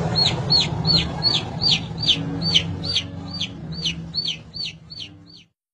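A lone chick peeping loudly and insistently, a steady string of short falling peeps about two to three a second: a chick in distress. A low hum sits underneath and fades, and everything cuts off suddenly near the end.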